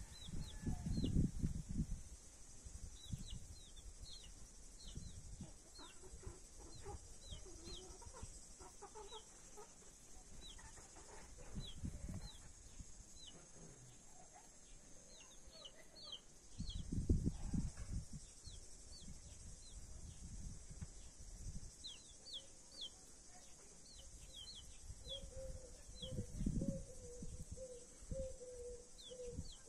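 Australorp chicks peeping: short, high, falling peeps in irregular clusters, over a steady high hiss. A few low rumbles of wind on the microphone come and go.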